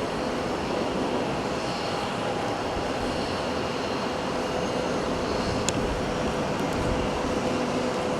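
Jet engines of a widebody airliner running steadily, an even noise with a steady underlying tone. A single brief click sounds a little past halfway.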